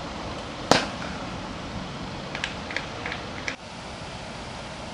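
Cricket bat striking the ball once with a sharp crack, a little under a second in, over a steady background hiss. A few short high chirps follow about two seconds later.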